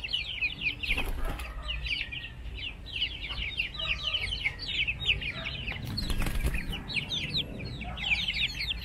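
Chickens at a coop: a continuous stream of rapid, high chirping calls, with wing flapping about a second in and again around six seconds in.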